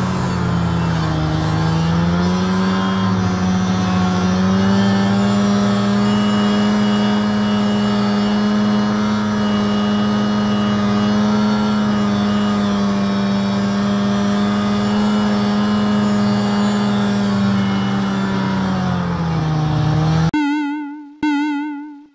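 Polaris 500 snowmobile's two-stroke engine running steadily at speed, heard from the seat, its pitch sagging briefly about a second in and again near the end. The engine sound then cuts off, and a short warbling tone fades out.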